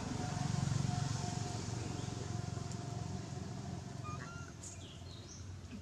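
A low engine hum, like a passing motor vehicle, that swells in the first second and then fades away. A few faint high chirps come near the end.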